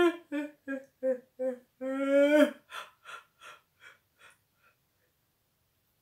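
A woman's deliberate, voiced yawns: a held open-mouthed 'ahh', a run of short voiced pulses about three a second, then a second long tone that falls in pitch at its end. Breathy exhales follow, fading out about halfway through, and then it goes quiet.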